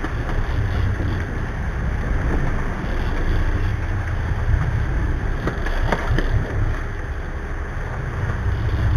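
Cabo 40 sportfishing boat running at sea: a steady low engine drone with water rushing past the hull and wind on the microphone.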